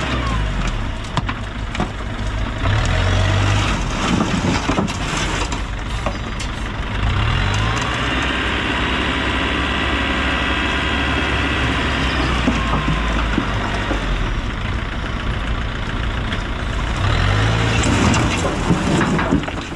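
Tipper truck's diesel engine running under load, rising in revs several times as it drives the hydraulic hoist that raises the loaded bed to tip earth and rock, with scattered knocks.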